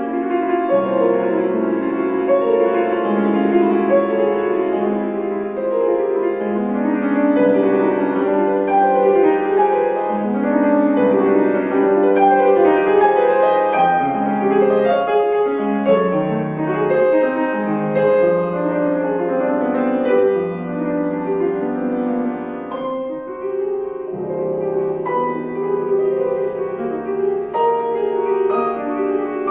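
Acoustic piano playing a classical piece: a continuous flow of sustained notes and chords, briefly softer a little over 20 seconds in.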